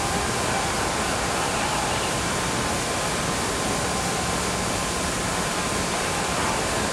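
Steady rushing hiss of an old fight-broadcast soundtrack with a faint steady whistle in it, and faint arena crowd noise beneath.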